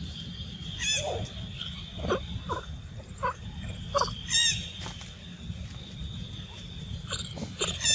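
Short high-pitched animal calls, repeated several times, the loudest about one and four and a half seconds in, over a steady outdoor background drone.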